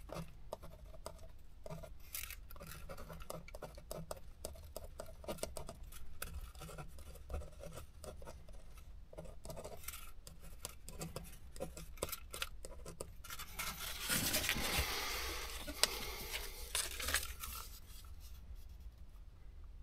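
Ballpoint pen scratching out handwriting in short strokes on a paper tachograph printout slip, with a louder rustle of the paper being handled for a few seconds after the middle.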